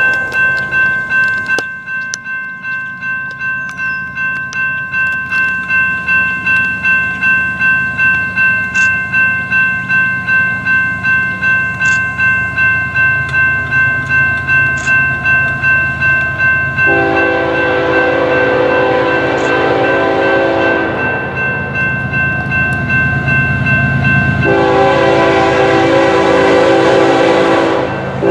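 Railroad crossing bell ringing steadily, about two strikes a second. About halfway through, a BNSF freight locomotive's horn sounds a long blast, stops, and starts another long blast near the end as the train approaches the crossing.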